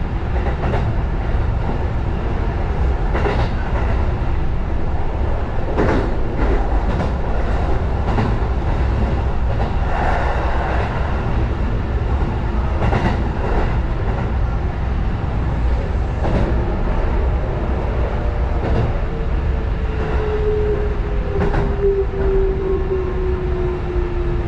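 Sanyo Electric Railway 6000 series electric train running, heard from the driver's cab: a steady low rumble with scattered sharp clacks of the wheels over the rails. Over the last few seconds a whine slowly falls in pitch.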